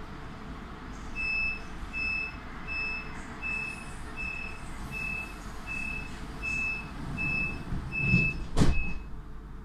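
Door-closing warning beeps of a DB X-Wagen S-Bahn coach: a high beep repeated about three times every two seconds, over the train's steady rumble. Near the end the beeping stops and the doors shut with a loud thud.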